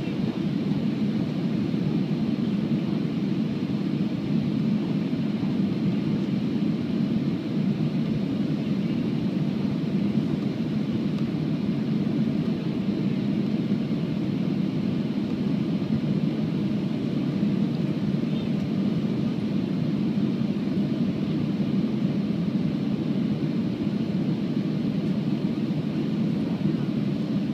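Airbus A330-300 cabin noise during the descent to land: a steady low drone of the jet engines and airflow over the fuselage, heard from inside the cabin.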